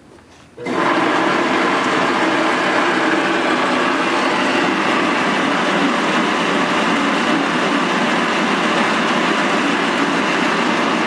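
Clausing 10" x 36" engine lathe switched on about a second in, its spindle and gear train then running steadily at high speed, out of back gear, with a dense mechanical whir.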